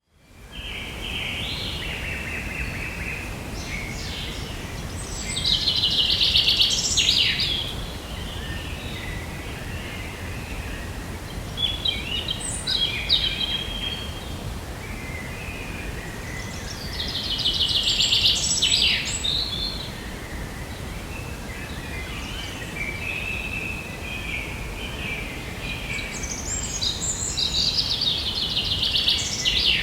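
Forest ambience: songbirds singing over a steady low rumble. Loud phrases of rapid trills come several times, about five, seventeen and twenty-six seconds in, with softer calls between.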